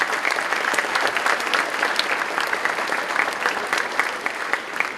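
Audience applauding, a steady mass of hand claps that begins to die down near the end.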